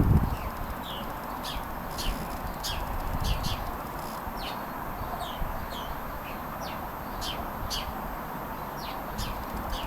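Songbirds chirping over and over, short quick downward-sliding chirps scattered throughout, over a steady rush of strong wind. A loud low rumble of wind buffeting the microphone comes at the very start.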